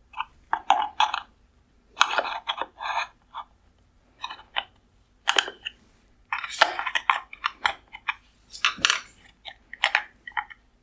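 Small screwdriver tip prying off the clips that hold an LED circuit board to a metal reflector bowl: an irregular run of short clicks, scrapes and clinks of metal on metal.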